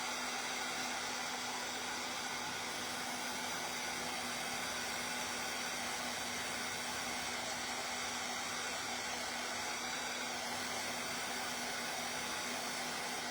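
Handheld hot-air blower running steadily, drying fresh paint: an even rush of air over a constant motor hum.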